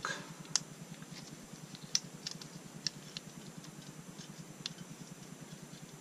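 Light, irregular clicks of the Benelli SuperNova shotgun's trigger assembly and bolt stop latch being handled and worked, about half a dozen small metal-and-polymer clicks over a faint background hum.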